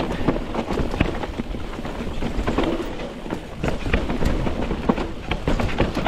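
Mountain bike riding down a dirt trail: tyres rolling over rough ground with frequent sharp knocks and rattles over bumps, over a low wind rumble on the microphone.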